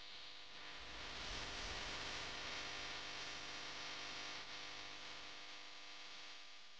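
Faint steady hiss with a low hum. It grows a little louder about half a second in and eases back around four and a half seconds.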